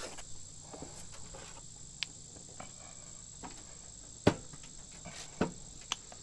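A few short, sharp clicks as the plastic cover of a Husqvarna 42-inch mulching kit is latched into place on the mower deck, the loudest a single click about four seconds in. Over them runs a steady, high insect chirring.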